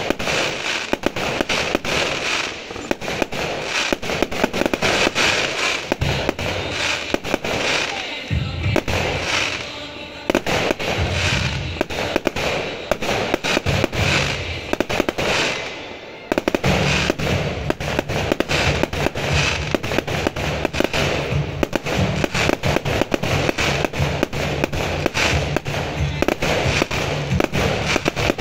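Fireworks display: aerial shells bursting and crackling in rapid, continuous succession, with a short lull about sixteen seconds in before the bursts start again.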